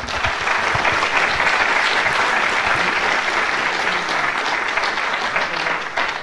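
Audience applauding: dense, steady clapping that starts at once and begins to die away near the end.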